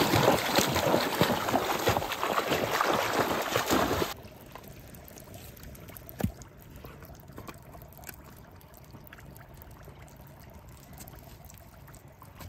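Water splashing and trickling, loud for about four seconds, then cut off abruptly. A much quieter background of faint trickling follows, with a single knock about six seconds in.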